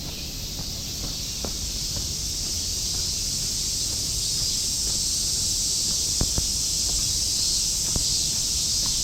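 Summer cicadas shrilling in a steady, dense chorus that grows slightly louder, with a few faint footsteps.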